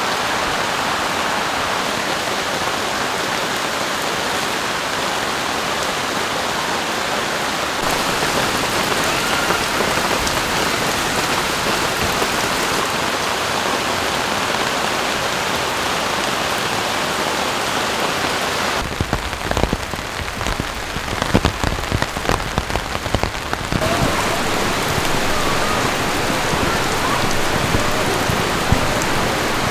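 Steady rain shower falling on tree leaves and a gravel campsite. About two-thirds of the way through, for a few seconds, closer drops strike a nearby surface in dense sharp ticks.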